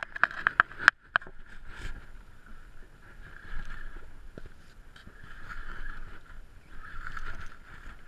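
Spinning fishing reel being cranked to wind in a hooked fish: a whirring at a steady pitch that swells and fades with each spell of winding, with a quick run of sharp clicks about a second in.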